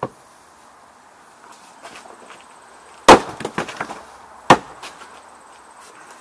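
Hults Bruk axe splitting firewood on a chopping block. A short knock at the start as the piece is set on the block, then a loud sharp split about three seconds in with the pieces clattering down after it, and a second axe strike about a second and a half later.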